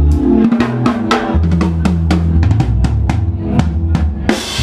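Live band playing an instrumental passage: a drum kit leads with rapid kick, snare and rimshot hits over electric bass and keyboards, with a cymbal wash near the end.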